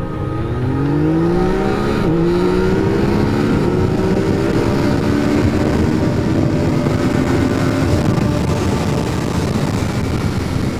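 Motorcycle engine accelerating hard, its pitch rising, with one upshift about two seconds in and a slower climb after it. Wind rush on the helmet-mounted microphone grows until it covers the engine in the second half.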